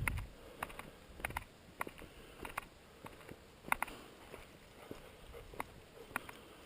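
Footsteps of someone walking: short sharp steps at an uneven pace, about one every half second to second.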